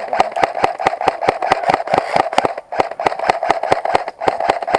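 Airsoft electric gun firing on full auto, about ten shots a second over the steady whine of its motor and gearbox, with two short breaks between long bursts.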